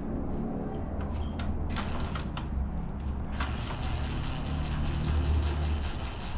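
Cordless drill running steadily for about three seconds, driving a screw into the plastic grille's sensor bracket, after a few clicks from handling the parts.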